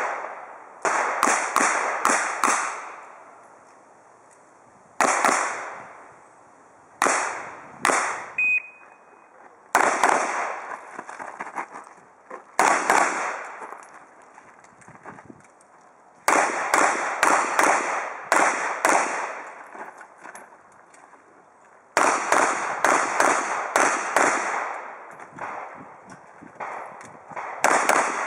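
Revolver shots fired in quick strings of several rounds, each with a short ringing echo. The strings are separated by pauses of a few seconds.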